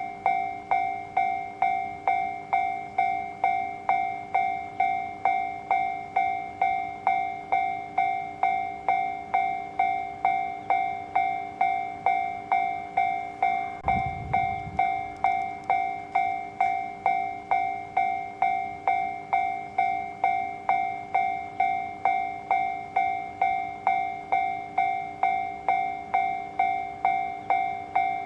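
Japanese railway level-crossing alarm ringing its repeated electronic bell tone, about two strikes a second, each strike fading before the next. A brief low thud sounds about halfway through.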